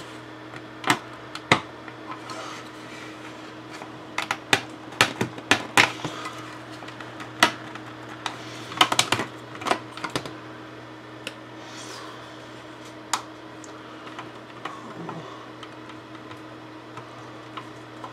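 Plastic JagdTiger model kit parts clicking and tapping as they are handled and pressed together. The clicks are sharp and irregular, bunched in the first ten seconds and sparser after, over a steady low hum.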